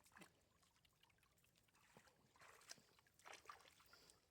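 Faint splashing and sloshing of water in a few short, scattered bursts, clustered about two and a half and three and a half seconds in.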